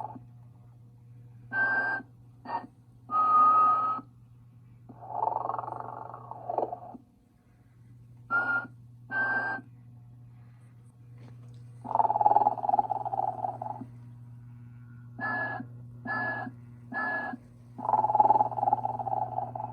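Telco Sleeping Santa animated electric figure playing its snoring and whistling loop: long, raspy snores alternate with short whistled toots that come in twos and threes. A steady low hum runs underneath.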